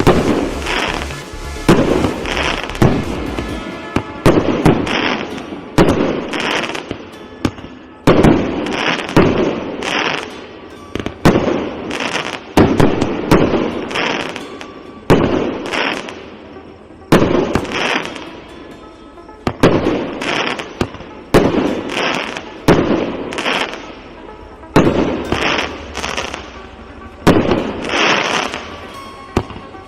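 Multi-shot consumer firework cake (СС8880, 364 shots, 1–1.2-inch calibre) firing a continuous sequence: launch thumps and aerial bursts come roughly one to two a second, often in quick pairs.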